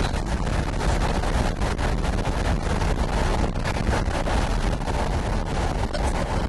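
Wind buffeting the microphone: a steady low rumble with constant crackling.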